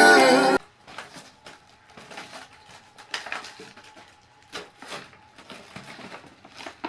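A song stops abruptly about half a second in, then scattered light taps and clicks.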